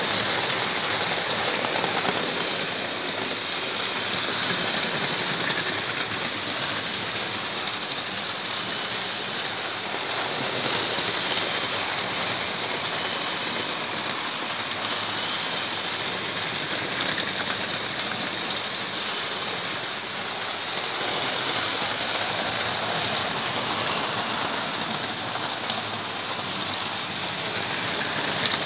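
Several model trains running at once on a layout: a steady, even mix of motor and wheel-on-rail noise with no break.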